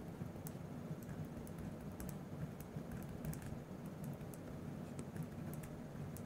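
Sakura Ballsign iD gel pen writing letters on lined paper: a light scratching with scattered small ticks as strokes start and end, over a low steady hum.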